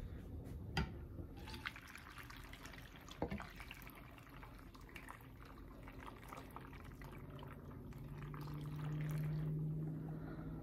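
Soft pouring of water from a glass measuring jug into a crockpot full of potatoes and a beef roast, trickling and splashing, with a couple of light knocks early. A low steady hum swells louder near the end.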